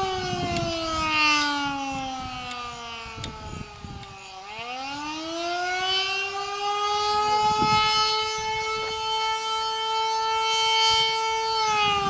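Canadian Federal Signal Model 2 mechanical siren sounding the attack signal: its tone slides down for about four seconds, dips sharply, winds back up to full pitch and holds, then begins to fall again near the end.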